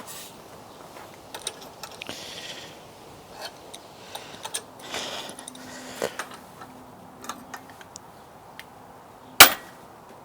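Bearing puller being wound tight against a seized bicycle crank, with scattered small metal clicks and creaks under strain, then one loud sharp crack near the end as the puller lets go and comes off the crank.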